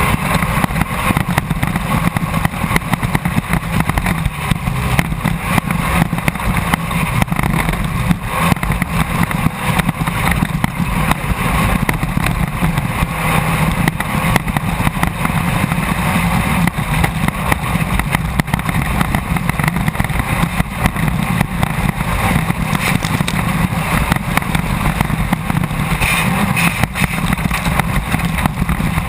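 A Class 1600 off-road race car's air-cooled Volkswagen engine running hard, heard from inside the car at racing speed, with a constant clatter of knocks and rattles over the ground.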